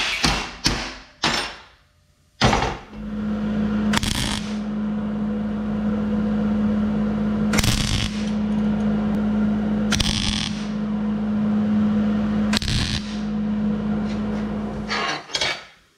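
A few hammer blows on a steel plate, then a stick welder's arc crackling over a steady hum for about twelve seconds before it stops near the end. This is a weld bead being laid again on a steel bracket joint.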